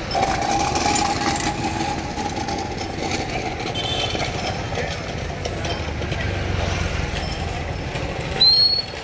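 Busy street ambience: vehicle engines and people talking. Near the end, a short high rising whistle, the loudest sound.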